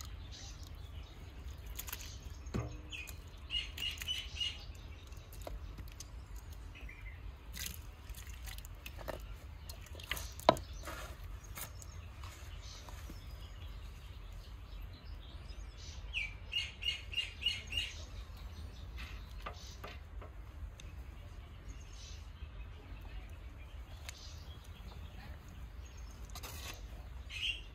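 A small bird chirping in short rapid runs of high notes, about three seconds in and again about sixteen seconds in, over a steady low rumble. One sharp knock, the loudest sound, comes near the middle.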